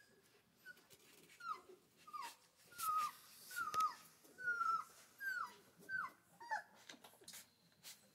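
Newborn Central Asian shepherd puppies whimpering: a run of about nine short, high cries, each falling in pitch, repeated well under a second apart and stopping near the end.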